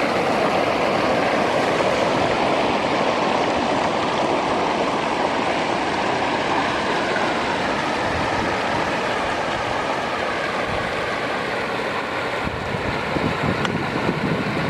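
Water flowing steadily down a desert wash, a continuous rushing.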